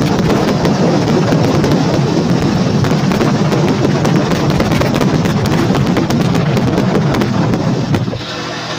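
Wind rushing and buffeting the microphone of a moving motorcycle, with crackles from the gusts over the engine. About eight seconds in the wind noise drops and a steady engine hum comes through as the bike slows.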